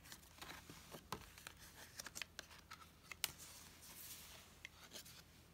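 Faint rustling and scattered light clicks of a picture book's thick pages being handled and turned.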